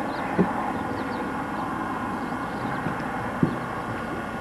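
Steady outdoor background rumble and hiss with two short, dull knocks about three seconds apart.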